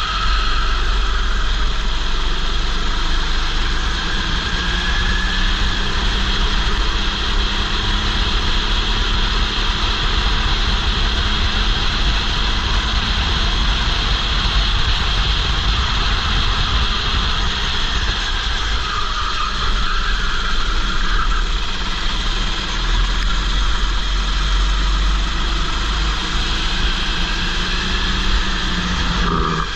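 Go-kart engine running flat out on track, heard through a helmet-mounted camera, with heavy wind rumble on the microphone. The engine pitch shifts a little now and then as the kart speeds up and slows.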